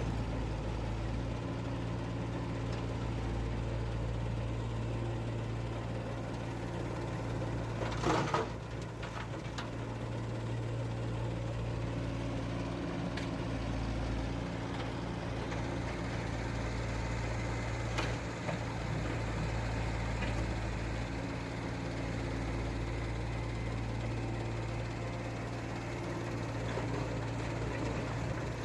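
An engine idling with a steady low hum, and a short clatter about eight seconds in.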